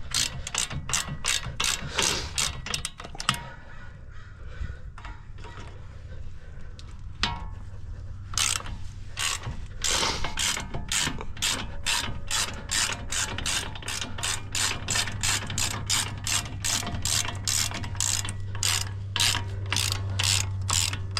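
Hand ratchet wrench clicking in quick runs, about three or four clicks a second, as it works the 18 mm brake caliper bolts loose. There is a pause of a few seconds early on before the clicking resumes and keeps going.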